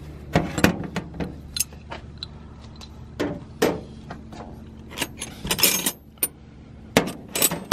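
Metal hand tools clinking and knocking as they are handled in a tool chest drawer: irregular sharp metallic clicks, with a brief jangle of metal a little past the middle.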